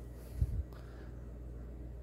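Handling noise: a short, soft low thump about half a second in as a plastic RC pistol-grip transmitter is handled, over a steady low hum.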